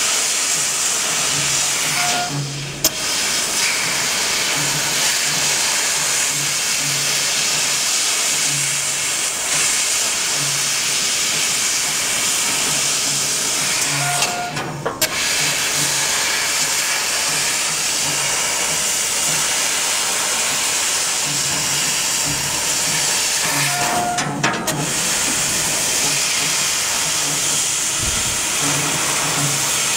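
Nd:YAG laser metal cutter hissing steadily as the gas jet from its cutting head blows through the cut in steel sheet. The hiss stops briefly three times between cuts, each stop marked by a short tone, and a low hum comes and goes underneath.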